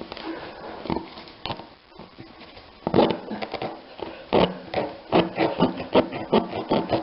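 Tire-repair reamer, coated in rubber cement, worked in and out of a puncture in a steel-belted tubeless tire: a few light rubbing sounds, then, from about three seconds in, repeated scraping strokes about two a second as the hole is cleaned up for a plug.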